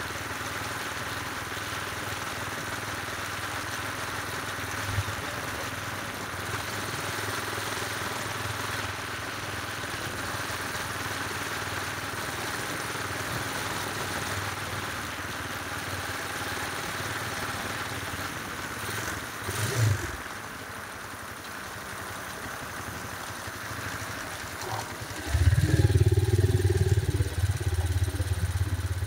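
Motorcycle engine running while riding, under a steady rush of wind and road noise. About 25 seconds in, the engine sound turns suddenly much louder and deeper.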